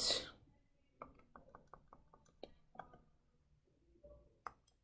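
Faint, irregular clicks of calculator keys being pressed, about a dozen over a few seconds, the last one the loudest, as an inverse tangent is keyed in.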